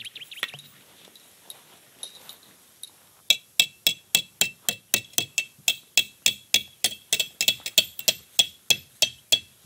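A hammer driving a metal tent peg into the ground: a steady run of over twenty sharp, ringing metallic strikes, about three or four a second, starting about three seconds in.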